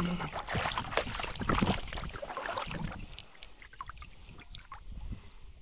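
Water splashing and sloshing close by as someone moves through shallow marsh water, heavy for the first few seconds, then lighter scattered splashes and drips.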